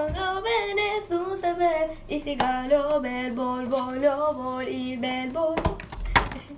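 A girl singing a tune on her own, unaccompanied, in held notes that step up and down. Near the end there is a brief burst of rustling and knocking.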